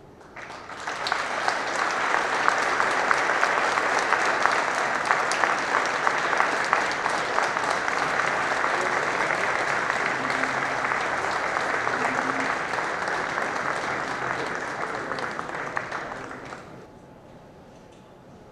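Audience applauding. The clapping builds up within the first second, holds steady, then dies away near the end.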